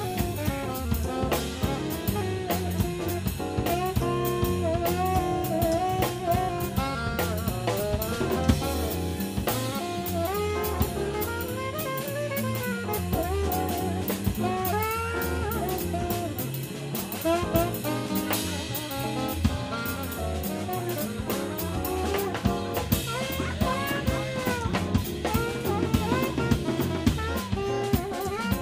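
Live jazz: an alto saxophone plays a flowing improvised-sounding line over a rhythm section of drum kit with cymbals, keyboard piano and bass.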